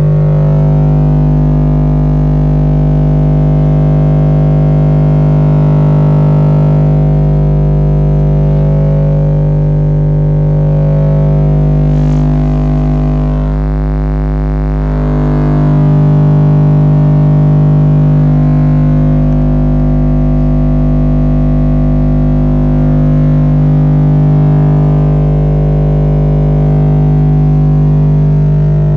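Subwoofer in a thin fibreboard cat-house enclosure playing a loud, steady 50 Hz test tone from a tone generator. The tone comes out as a heavily distorted, unbroken drone with a dense stack of overtones.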